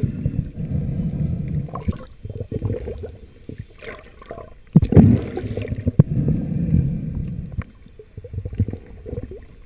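Muffled underwater water noise at a diver's submerged camera: low, irregular churning and rushing of water as the diver swims and hauls in a line. It swells louder about five seconds in and again a second later.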